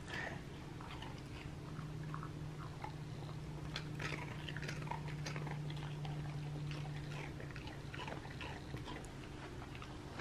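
Corgi chewing a small, dry dog biscuit: a run of faint, irregular crunches and mouth clicks.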